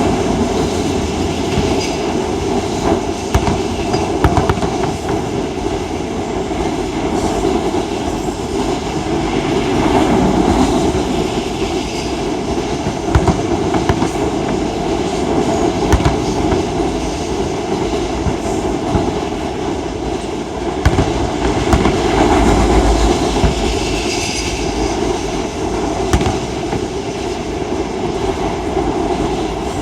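Freight train rolling past on a bridge overhead: a continuous heavy rumble of wagons with wheel clatter. A few sharp pops from the fireworks show cut through it.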